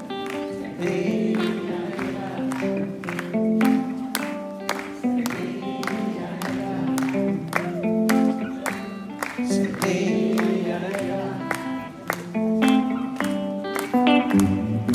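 Live band music in an instrumental passage between verses, led by plucked guitar notes and chords at a steady rhythm, played over a concert PA.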